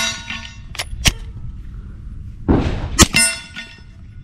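Suppressed ZEV OZ9c 9mm pistol fired once, a little past halfway: a short, quiet, hissing report, then a sharp crack with brief metallic ringing. A couple of sharp clicks come before it, and the next shot starts right at the end. The pistol is not cycling with the suppressor, firing single-shot because its recoil spring is too heavy.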